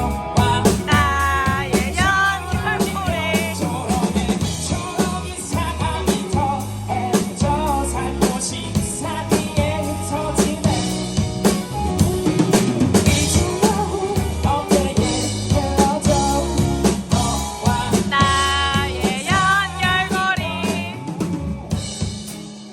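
Live band music: a singer over drum kit, bass and guitar, with a steady beat. The band drops away near the end, leaving the guitar.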